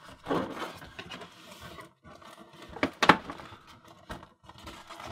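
Cardboard box and packaging being handled and opened: irregular scraping and rustling with a few sharp clicks, the loudest about three seconds in.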